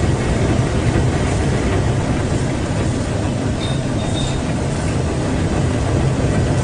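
Brush roller ginger peeling and washing machine running: a steady, loud machine hum with an even noisy churn over it.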